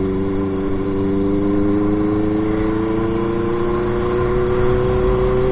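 Motorcycle engine heard from the rider's seat, running steadily under way, its pitch climbing slowly as the bike gathers speed.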